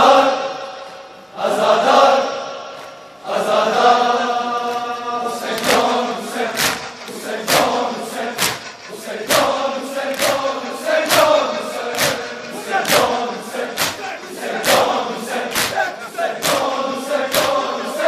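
A crowd of men chanting a noha (Shia mourning lament) together in loud phrases. About five seconds in, rhythmic chest-beating (matam) joins: sharp hand-on-chest slaps in unison, roughly one a second.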